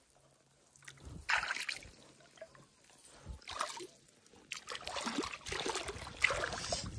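River water splashing and sloshing as a fish trap is worked into place in the shallows: two short splashes, then steady splashing over the last couple of seconds.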